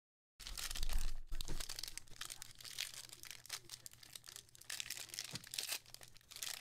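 Foil wrapper of a Tier One trading-card pack being torn open and pulled apart by hand: continuous crinkling and tearing that starts about half a second in, loudest near the start.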